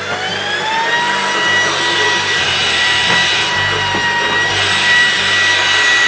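Stick vacuum running on carpet, picking up sawdust: its motor whine rises as it spins up over the first second, then holds steady under the noise of the suction and the head on the carpet.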